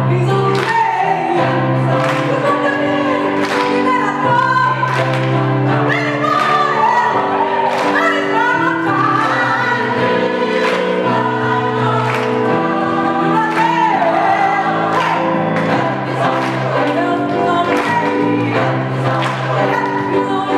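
Mixed gospel choir singing in harmony over a steady beat.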